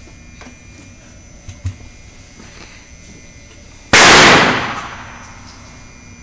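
A single gunshot about four seconds in, loud enough to hit full scale, with a tail that fades over about a second.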